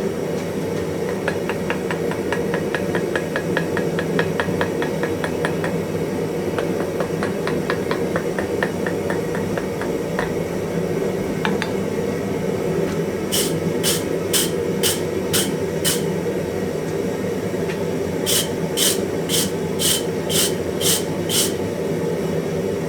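Steady roar of a forge fire with hammer work on hot iron: a long run of light, quick taps at about four or five a second, then two runs of hard hammer blows, about seven and then eight, a few a second. This is forge welding a wrought-iron faceplate onto an anvil body.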